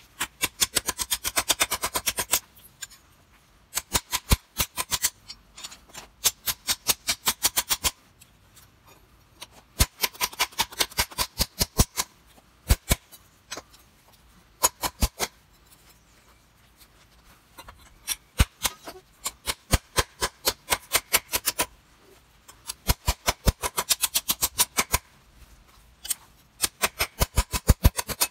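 Claw hammer beating a bent strip of thin sheet metal flat on a wooden stump: quick runs of sharp blows, about seven a second, broken by short pauses.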